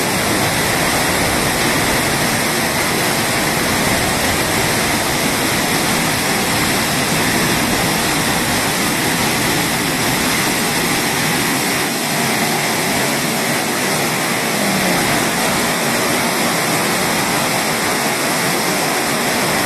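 Tōryū Falls' cascading water making a loud, steady, even rush with no break.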